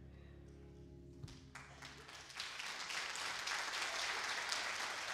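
A sustained musical chord dies away in the first second or two, then a congregation breaks into applause that swells about two seconds in and keeps going.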